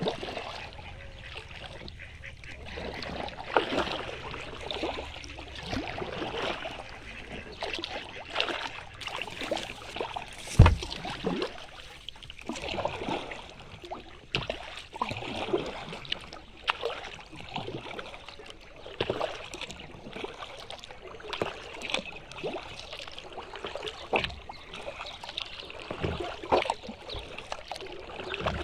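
Kayak paddle strokes dipping and splashing in calm lake water, roughly one a second, with mallard ducks quacking. There is one sharp loud knock about ten seconds in.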